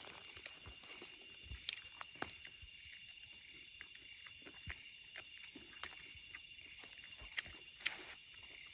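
Night insects chirring in a steady high chorus that pulses about twice a second. Scattered light taps and rustles come from hands handling food on dry leaves.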